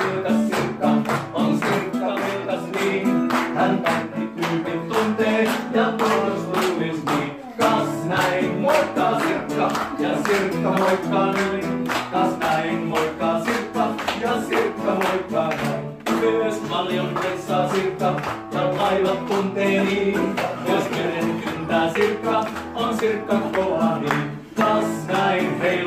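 Small live band playing a song on acoustic guitar and electric keyboard, with voices singing along.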